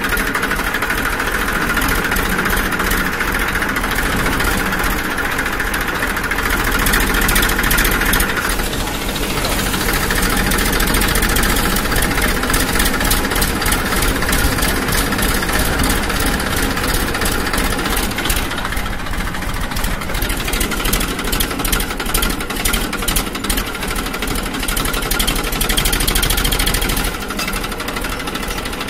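A small motor or engine running steadily with a fast, rattly pulse, its tone shifting a couple of times.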